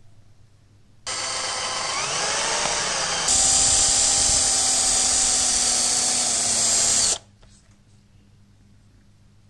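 Power tool motor starting abruptly and running at speed for about six seconds, with a high whine. It gets louder and brighter about two seconds after starting, and then stops sharply.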